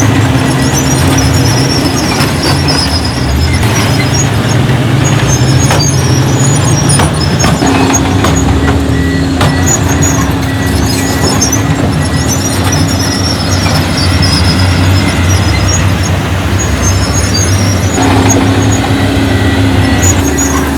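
Heavy diesel earthmoving machinery running under load: bulldozer and dump truck engines, with the engine note shifting a couple of times and occasional knocks.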